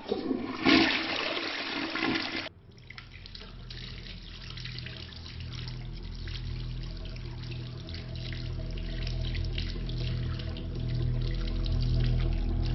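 A push-button toilet cistern flushing, a loud rush of water for about two and a half seconds that cuts off suddenly. It is followed by a quieter low, slow pulsing with steady tones and a faint trickle, growing louder toward the end.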